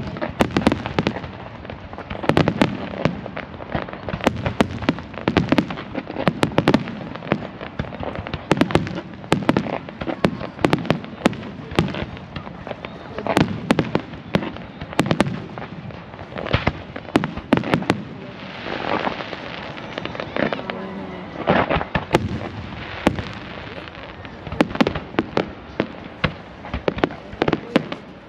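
Aerial fireworks display: a rapid, continuous string of sharp bangs and crackles, with a hissing, crackling stretch about two-thirds of the way through.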